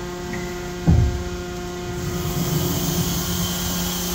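The enclosure door of a DMG Mori NTX 1000 machining center being opened, over the machine's steady hum. About a second in there is a single heavy thump, followed by a low rumble as the door runs open. From about two seconds in a hiss grows louder.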